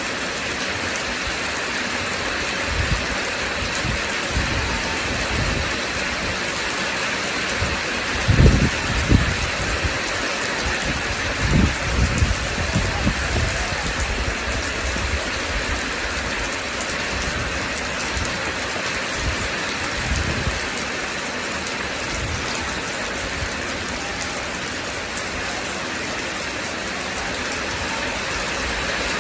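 Steady rain falling, with short low rumbles of thunder about eight seconds in and again around twelve seconds.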